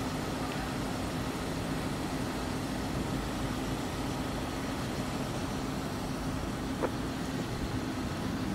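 Steady vehicle rumble under a constant low hum, with one brief short chirp about seven seconds in.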